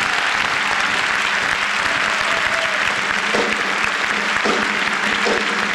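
Large audience applauding, dense steady clapping.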